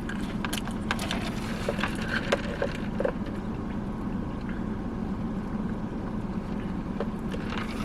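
Steady low hum inside a car's cabin, with soft chewing and small clicks from eating chicken wings by hand during the first three seconds.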